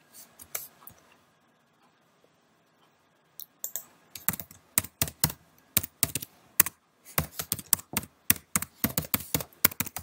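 Typing on a computer keyboard to enter a login name and password. A few keystrokes come first, then a pause of a couple of seconds, then a quick, irregular run of key clicks from about three and a half seconds in.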